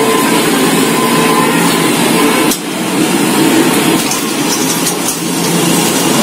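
A steady motor-like hum with a hiss over it, dipping briefly about two and a half seconds in.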